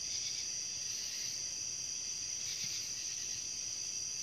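Chorus of night-singing insects: a steady, high-pitched, unbroken trill.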